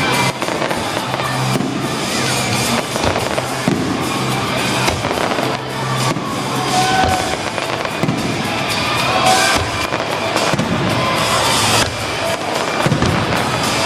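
Aerial fireworks display: rapid, repeated bangs and crackling bursts, with music playing underneath.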